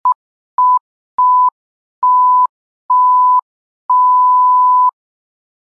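Electronic beep tone at one steady pitch, sounded six times with short silences between, each beep longer than the one before; the last lasts about a second.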